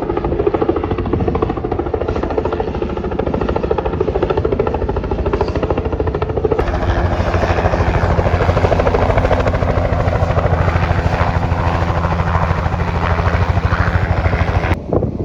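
Helicopter running close by: a loud, fast, steady rotor-blade chop with an engine hum beneath it. The sound jumps abruptly about six and a half seconds in and cuts off just before the end.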